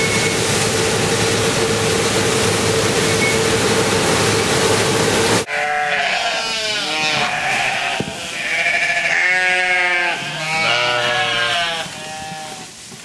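A combine harvester running in the field, a loud steady noise with a constant whine, which stops abruptly about five seconds in. Then lambs bleat repeatedly, several overlapping calls.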